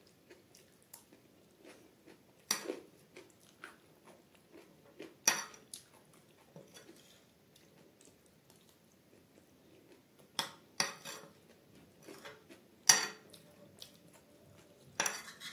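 Close-up eating of black chickpea chaat: chewing and mouth sounds, with several sharp clicks as a metal spoon scoops from the plate and goes to the mouth.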